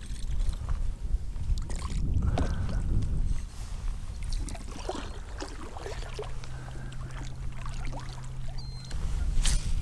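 Water sloshing and small knocks around a fishing kayak over a steady low rumble, with scattered ticks and one sharp click near the end.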